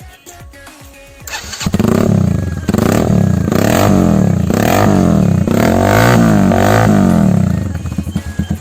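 150cc motorcycle through an SC Project slip-on exhaust, revved hard several times in quick succession, each rev rising and falling, from about a second and a half in. Near the end it drops back to a steady pulsing idle.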